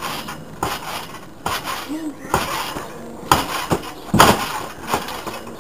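Trampoline being bounced on, a landing about once a second, each with a sharp clanking rattle from the frame and springs.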